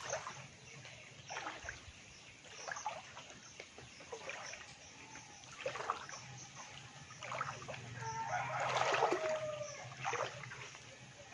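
Splashing steps wading through shallow floodwater, about one every second and a half, with a louder slosh near the end. A short chicken call sounds over it about nine seconds in.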